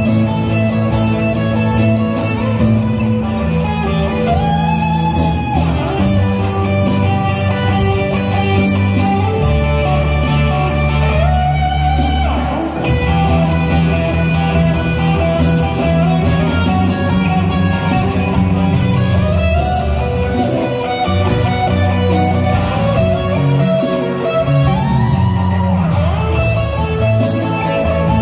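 Live rock band playing an instrumental passage: lead electric guitar with bent notes over electric bass, drum kit and keyboard.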